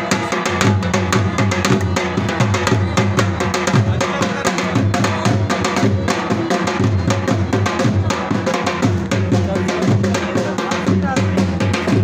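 Dhol drum played with sticks in a fast, steady attan dance rhythm, dense strokes running without a break.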